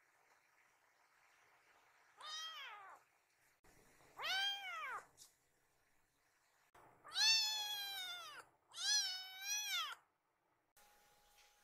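Black kitten meowing four times, each call rising and then falling in pitch. The third call is the longest and loudest.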